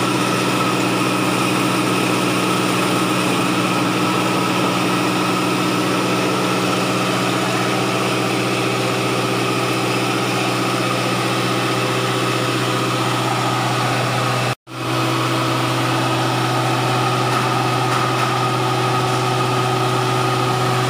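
Motor-driven pepper grinding mill running steadily with a hum, grinding peppercorns into powder. The sound cuts out for a split second about fourteen seconds in and resumes unchanged.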